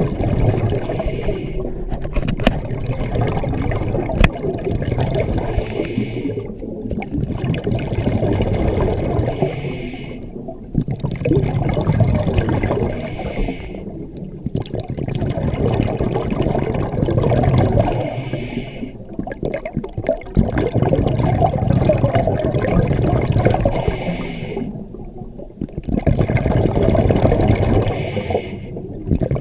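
Scuba diver breathing underwater through a regulator: rushing, bubbling exhalations and hissing inhalations that come in cycles about every four to six seconds, each broken by a short pause, with a couple of faint clicks.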